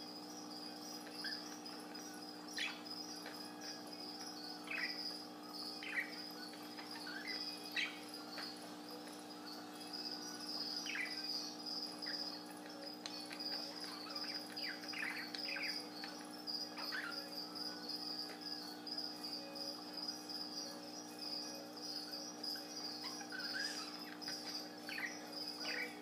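Budgerigar giving short, soft chirps every second or two over a continuous, high-pitched pulsing trill and a steady low electrical hum.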